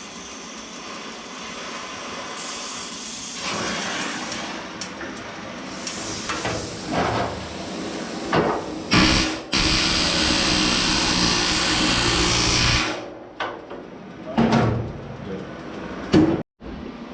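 Hot-riveting work on sheet-metal cowl feet: several sharp hammer blows on metal, with a loud steady noise lasting about three seconds in the middle.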